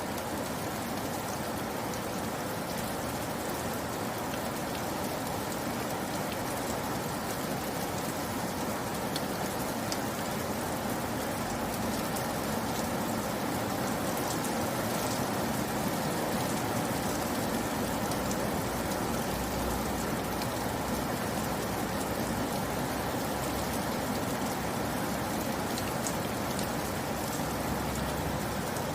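Steady rain falling, with a constant hiss and scattered sharper drop patters on a surface.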